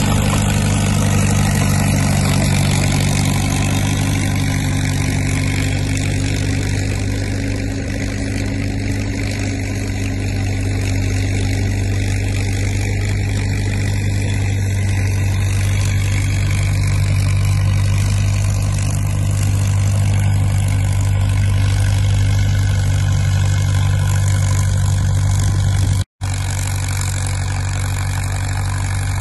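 International Harvester T-9 crawler's magneto-fired gasoline engine running steadily under load as the dozer tows a tire drag through snow. The sound cuts out for an instant a few seconds before the end, then carries on a little quieter.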